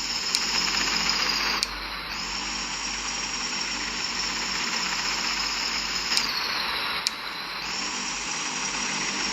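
Airliner jet engine noise heard inside the cabin during landing: a steady rushing with a high whine that drops in pitch twice.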